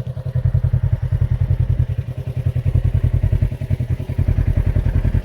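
An engine idling steadily, a rapid even low pulsing.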